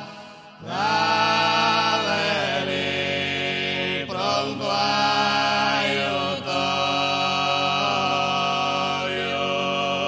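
Sardinian male vocal group singing a religious gozos a cappella in close harmony, low voices holding long notes under the melody. A short break just after the start, then a new phrase rising in, with brief breaks about four and six seconds in.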